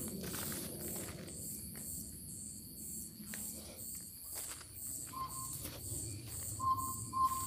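Crickets chirping steadily, about two high chirps a second, over footsteps rustling through dry grass in the first second or so. From about five seconds in, a handheld energy detector gives three short, clear electronic beeps, the loudest sounds here, each about a third of a second long.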